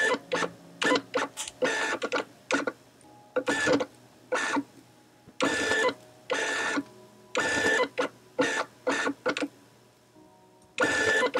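Canon EF 50mm f/1.8 STM lens's stepping focus motor driving the focus, heard as a string of short, irregular bursts of buzzing whir with a faint hum between them. The sound is greatly amplified from a microphone set right beside the lens; it sounds strange up close but is almost silent at a normal distance.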